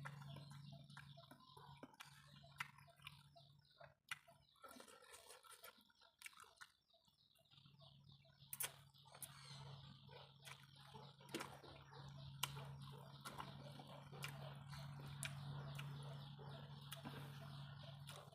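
Quiet outdoor ambience with faint birds chirping, a steady low hum underneath, and scattered light clicks.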